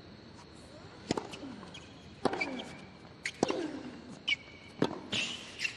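Tennis ball being struck by rackets and bouncing on a hard court during a rally: sharp pops about a second apart, each with a short falling ring, mixed with brief high squeaks of tennis shoes on the court.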